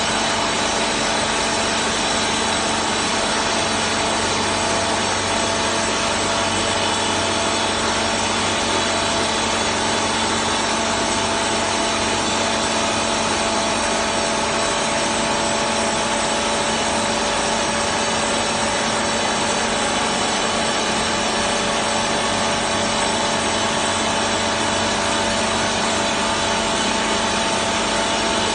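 HFG-33J three-boom drilling jumbo at work drilling rock, its hydraulic drills and power pack making a loud, unbroken grinding noise with steady whining tones over it.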